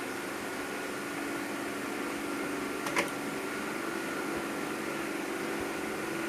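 Steady fan-like machine hum with a faint whine, and one sharp click about three seconds in, typical of a part or tool being handled.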